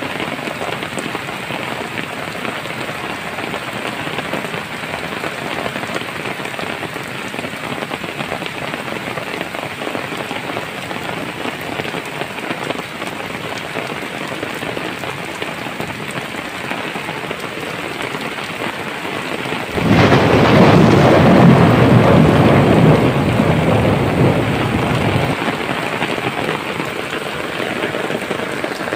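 Floodwater of a swollen hill stream rushing past in a steady, loud hiss. About two-thirds of the way through, the sound turns much louder and deeper for about five seconds, then settles back.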